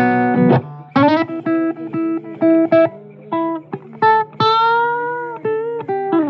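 Blues guitar playing a lead line of single plucked notes, with a long bent note in the middle and a note sliding down near the end.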